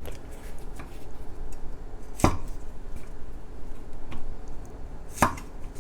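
Knife chopping green beans on a cutting board: two loud chops about three seconds apart, with a few lighter knocks between.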